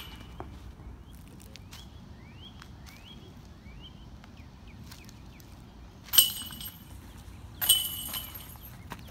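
Two disc golf discs striking a metal chain basket, about a second and a half apart, each a sharp clank of chains and metal with a brief high ringing.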